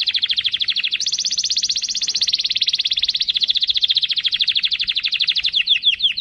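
Domestic canary singing an unbroken run of rapid trills. The pace and pitch change every second or so, and near the end the song slows into separate notes.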